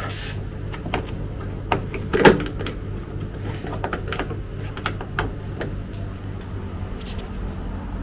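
Scattered clicks and knocks of plastic trim panels being handled and clipped into place, the loudest knock about two seconds in, over a steady low hum.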